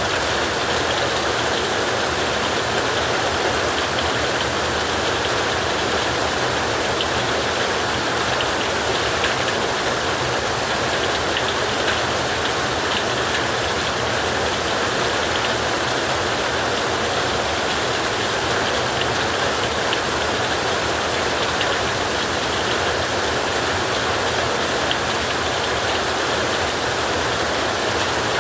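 Heavy rain falling steadily on a tin roof, an even, unbroken hiss that does not change.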